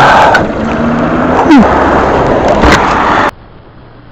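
Motorcycle on the move heard through a bike-mounted camera: loud engine, road and wind noise with a couple of sharp knocks and a brief falling tone midway. About three seconds in it drops abruptly to a faint wind hiss.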